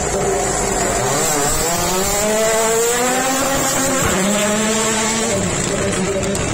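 Toyota GR Yaris Rally1 rally car, with a 1.6-litre turbocharged three-cylinder engine, accelerating hard past at close range. The engine revs climb and drop several times as it changes up through the gears, then fade as it drives away.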